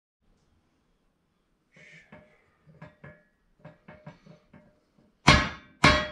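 Mallet blows on the end of a Ford 770B loader lift cylinder rod, driving the piston and its tight new seals down into the cylinder barrel. Light knocks with a metallic ring come first, then two hard blows about half a second apart near the end, each ringing on.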